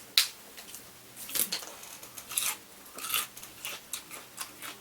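Eating and food-handling sounds at a seafood boil: a sharp click about a fifth of a second in, the loudest sound, then scattered short crisp clicks and rustles of hands, utensils and food.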